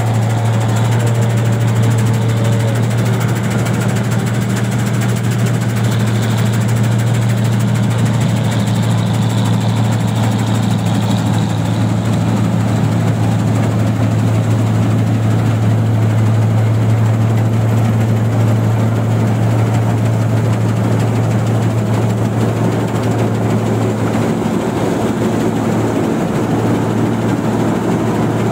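New Holland 1545 combine harvester running steadily under load, a loud even engine hum that shifts slightly near the end.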